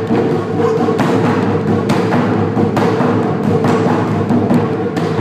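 Taiko drumming: two nagado-daiko (barrel drums) struck hard with bachi sticks over a quick steady pattern on a shime-daiko. Dense rapid strokes with heavier accents roughly once a second.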